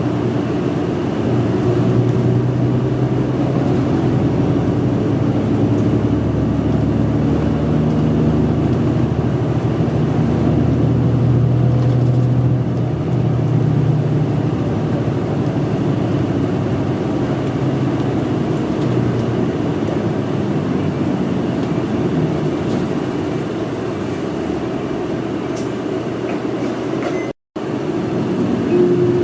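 Inside a city bus under way: the diesel engine drones with road and rumble noise. The engine note is strongest for the first half, then eases off, and the sound cuts out for a split second near the end.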